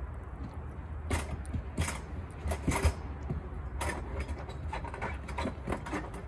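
A cat eating canned tuna from a dish, with irregular wet chewing and smacking clicks that come thickest about one to three seconds in. A steady low rumble runs underneath.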